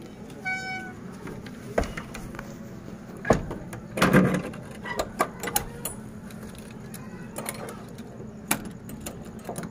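A door being shut and padlocked: scattered metal clicks and knocks from the latch and lock, with a brief squeak about half a second in. Cloth rubs against the phone's microphone throughout.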